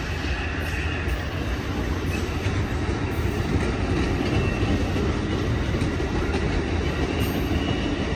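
Amtrak Coast Starlight's bilevel Superliner passenger cars rolling past on the rails: a steady, continuous rumble of wheels on track.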